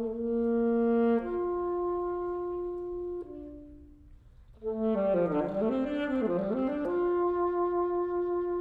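Alto saxophone playing a slow concerto line of long held notes. It fades away briefly about three seconds in, returns with a quick winding phrase of bending notes, and settles on another long sustained note.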